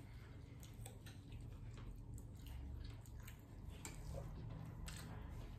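Faint chewing of soft chocolate-glazed brownie cake: scattered small wet mouth clicks over a low hum.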